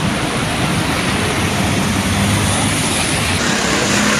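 Steady rushing noise of heavy rain and gusty wind, with a low vehicle engine hum underneath.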